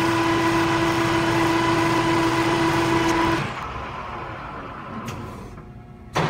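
Metal lathe turning a steel shaft with a carbide insert, running steadily with a constant tone under the noise of the cut. About three and a half seconds in the machine stops and the sound drops away, followed by a faint click and one sharp knock near the end.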